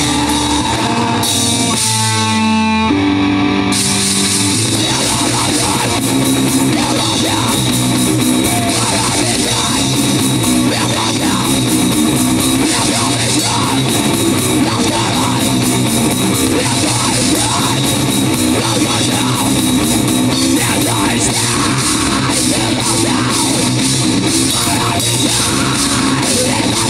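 Live heavy rock band playing an instrumental passage: distorted electric guitars over a drum kit. The sound thins out briefly about two seconds in, then the full band comes back in about four seconds in.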